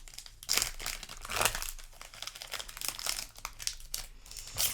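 Foil booster-pack wrapper crinkling and crackling in the hands, in irregular bursts, loudest about half a second and a second and a half in.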